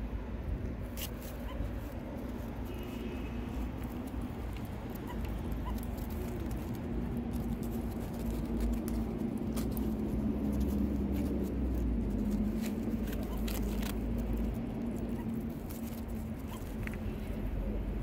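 A meerkat digging in sandy soil, scratching and snuffling at the dirt in scattered short bursts, over a steady low hum.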